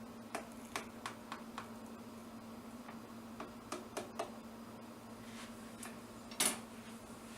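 Scattered light clicks and taps from objects being handled: a quick run of about five in the first second and a half, four more around the middle, and a louder knock about six and a half seconds in, over a steady low hum.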